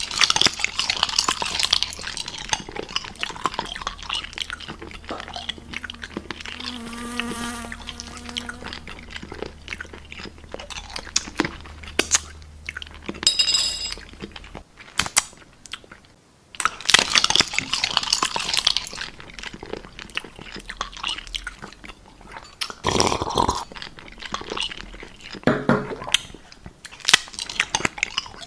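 Eating sounds: crunchy chewing and biting, an irregular run of crackles and clicks with a few short pitched sounds in between.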